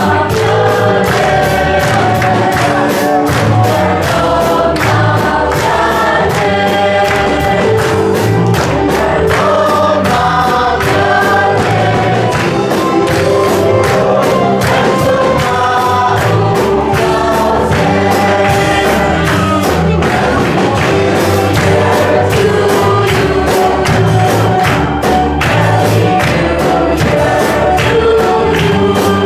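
Congregational worship singing: a congregation and a worship team on microphones singing together, with instrumental accompaniment keeping a steady beat.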